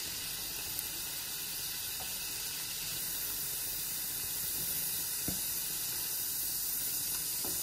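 Mushrooms, onions and red peppers sizzling in fat in a hot pan: a steady hiss. A few faint taps of the silicone spatula against the pan as the food is scooped out.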